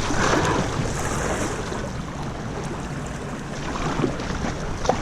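River water rushing and splashing around a small plastic kayak, with wind buffeting the microphone. A light knock comes near the end.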